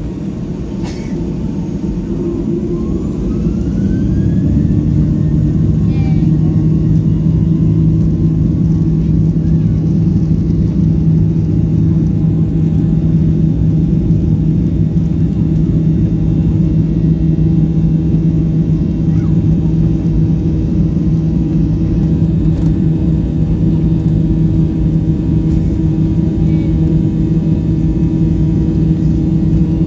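Jet airliner's turbofan engines spooling up to takeoff power, heard inside the cabin: a rising whine and growing engine noise over the first few seconds, then loud, steady engine noise with a deep hum through the takeoff roll.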